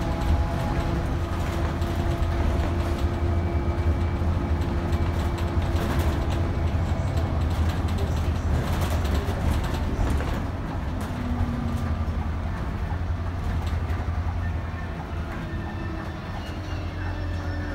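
City bus driving along, heard from inside the cabin near the driver: a steady low engine and road drone with a faint whine and light rattles, easing a little about ten seconds in.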